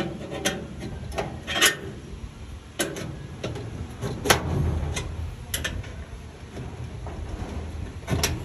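Sharp metallic clicks and knocks at irregular intervals from a screwdriver working at a ball-bearing drawer slide rail inside a metal filing cabinet, over a low steady rumble.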